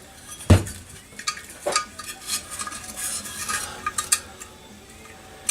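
Metal tools clinking, tapping and scraping against the outboard lower-unit housing as a drill bit is worked into the water-intake plug hole to clear old sealer. There is a sharp knock about half a second in and another just under two seconds in, then light clicks and scraping.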